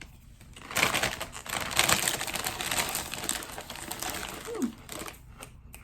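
Foil chip bag crinkling and rustling in dense crackles as a hand rummages inside it, with a short falling tone near the end.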